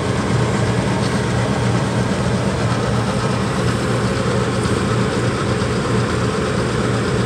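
A steady low machine hum with no change in level.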